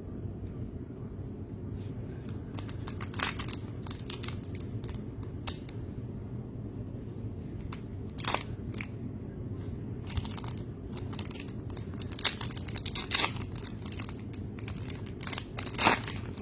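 Trading card pack wrappers crinkling and tearing as NBA Hoops packs are opened and the cards handled, in scattered sharp crackles, the loudest a few seconds in, around the middle and near the end. A steady low hum runs underneath.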